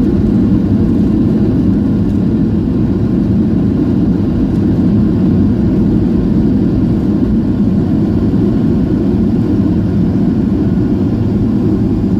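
Steady, loud low rumble of a jet airliner heard from inside the passenger cabin: engine and airflow noise, with no change in pitch or level.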